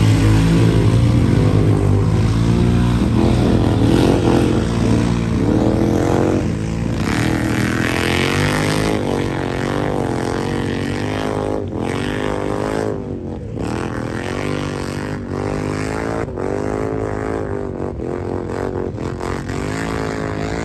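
ATV engines revving hard in a mud race, their pitch rising and falling again and again as the throttle is worked. Loudest over the first several seconds.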